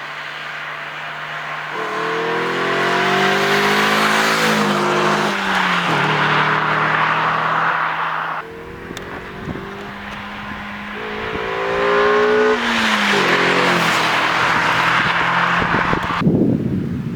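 Renault Twingo RS's 1.6-litre four-cylinder engine accelerating, its pitch climbing through the revs, dropping, then climbing again before falling away. Near the end it gives way to a rough, noisy rumble.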